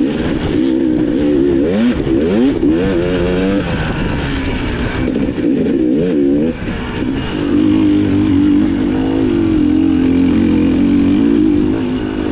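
Dirt bike engine revving up and down over a trail, the pitch rising and falling repeatedly, then settling into a steadier drone about halfway through.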